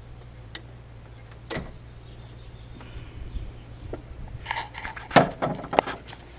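Sharp metal clicks and clanks of a spanner working the auxiliary belt tensioner on a Land Rover Defender TD5 engine as the tensioner is released and the belt pulled off, with a louder burst of metallic clatter about five seconds in.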